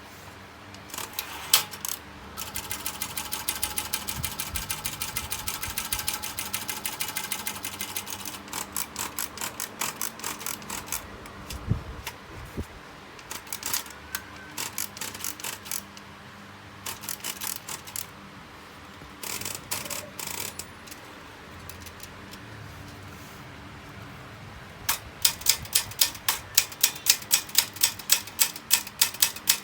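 Vintage Olympia manual typewriter being typed on: fast runs of key strikes with short pauses between them and a single low thump near the middle. Near the end it settles into a steady run of about four strikes a second.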